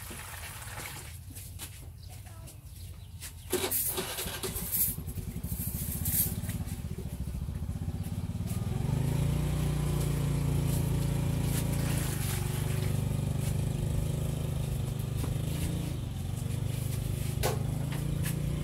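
A small engine running, growing louder and steadier about eight seconds in, with a few sharp knocks in the first seconds.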